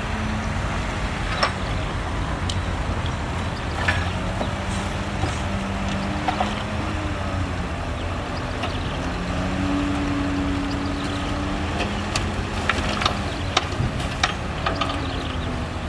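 Heavy diesel construction machinery running steadily, its engine pitch shifting up and down, with scattered sharp knocks and clanks.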